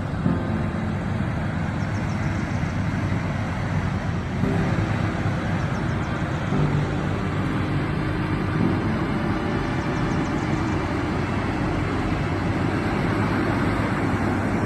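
Farm vehicle's engine running steadily while driving along, with its note shifting slightly a couple of times, over a constant rumble of travel noise.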